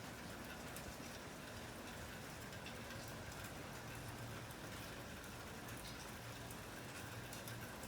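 Steady rain falling, with many individual drops ticking.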